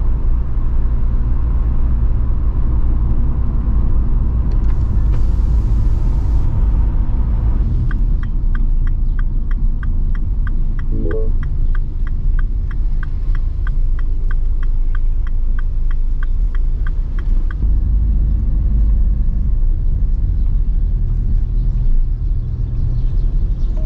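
Steady low rumble of a car's engine and road noise heard from inside the cabin while driving. About eight seconds in, the turn-signal indicator starts clicking at about three clicks a second for some ten seconds, then stops. A brief hiss comes about five seconds in.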